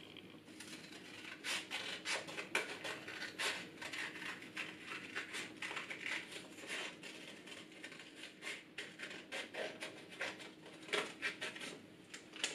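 Scissors snipping through a doubled sheet of comic-book paper: a steady run of short, irregular snips with paper rustling between them.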